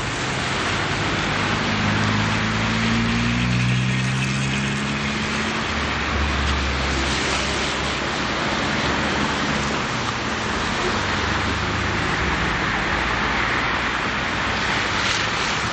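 Steady rushing outdoor noise, with a low droning hum that shifts slightly in pitch over the first half and then fades into the hiss.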